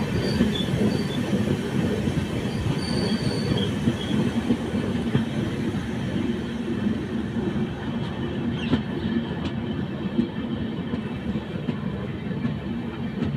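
Amritsar–Chandigarh Express running at speed: steady rumble and rattle of the coaches' wheels on the rails, with a few faint short squeals in the first few seconds.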